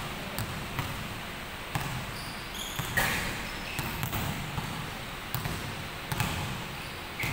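Basketball bouncing at irregular intervals on a hardwood gym floor, each bounce a sharp thud, with a few short high squeaks between them.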